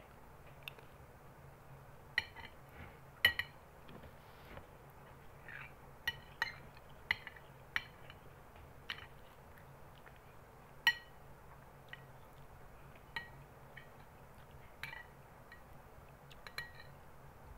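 Metal spoon clinking against a glass bowl while rice is scooped up. There are short, sharp clinks with a brief ring, irregularly spaced, about one a second.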